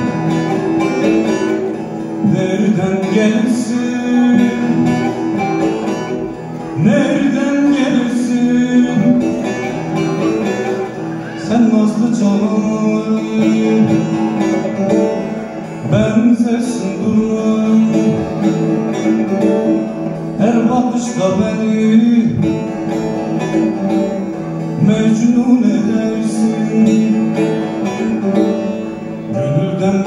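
A man singing a slow, ornamented melody while accompanying himself on a bağlama, the long-necked Turkish lute, its plucked strings ringing under the voice.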